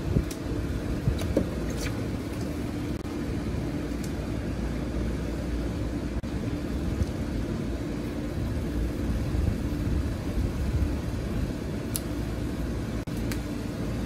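Steady low rumble of rooftop air-conditioning machinery running, with a faint steady hum and a few light clicks.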